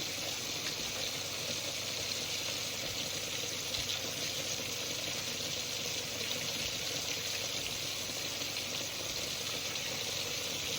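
Hush puppies deep-frying in a pot of hot oil, a steady sizzling.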